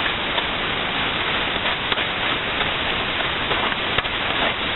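Onions and curry leaves sizzling in hot oil in a pan: a steady frying hiss with a few faint pops.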